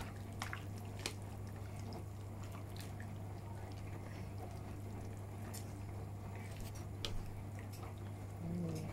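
Pot of chicken and vegetable soup simmering, with scattered small pops and drips from the bubbling broth over a steady low hum.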